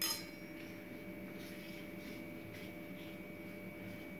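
A short clink at the very start, then faint soft swishing of a hand spreading oil over thinly stretched parotta dough on a granite countertop.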